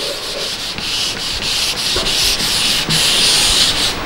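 Whiteboard eraser rubbing across the board in quick repeated back-and-forth strokes, wiping off marker writing.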